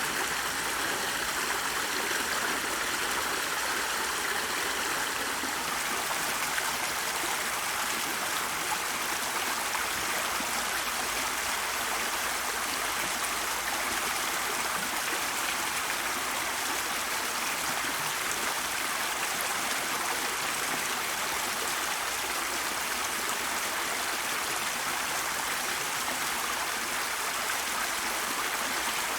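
Steady running water, a continuous even rush like a flowing stream, unchanging throughout.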